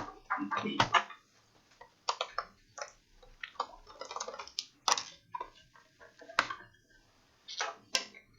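Sharp clicks, taps and light clatter of a laptop being opened up by hand, with plastic case parts and small tools being handled.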